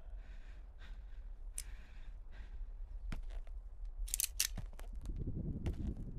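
A revolver is clicked several times with no shot: sharp metallic clicks of the hammer and cylinder, the brightest cluster a little past four seconds in. This is a dry fire on empty chambers in a game of Russian roulette.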